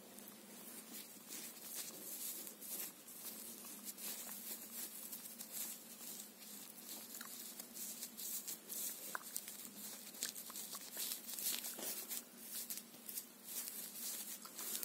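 Close crackly scratching and rustling right at the microphone, as hands and a hair-styling tool are brushed toward it, made up of many small sharp ticks.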